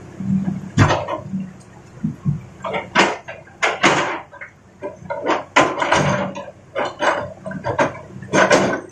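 Big rocks knocking and clattering in a run of irregular, sharp knocks as an excavator loads them into a dump truck, with the low steady hum of the Hitachi excavator's engine underneath.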